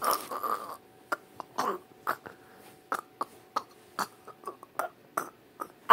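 A brief rustling burst, then a string of short, sharp taps and knocks at irregular spacing, about two or three a second, over a faint steady hum.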